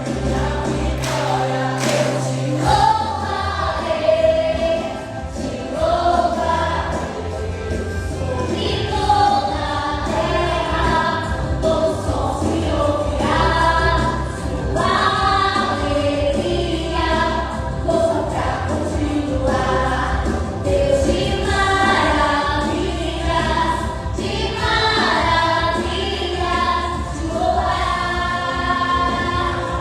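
Gospel vocal group singing in harmony over instrumental backing, with a bass line that changes about three seconds in.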